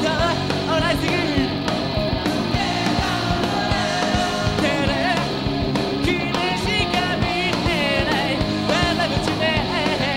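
A rock band playing live, a singer's voice over electric guitar and a drum kit with steady drum hits, in a pop-punk style.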